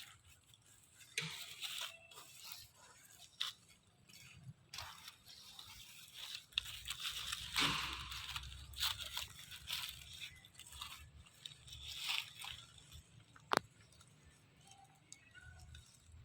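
Monkeys eating: irregular crunching, tearing and rustling as food is bitten and handled, with one sharp click near the end.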